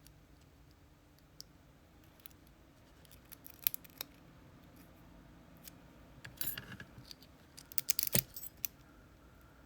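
Small metal clicks and scrapes of lock tools working on a partly disassembled Abus C83 padlock. The clicks come a few at a time, with quick bunches of them about six and eight seconds in.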